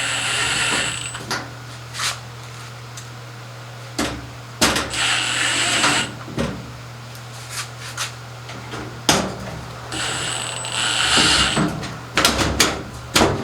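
Screws being driven with a ratcheting or powered screwdriver while a washing machine's drain pump is refitted: three runs of rapid ratcheting about a second long, with sharp clicks and knocks of the tool and parts between them.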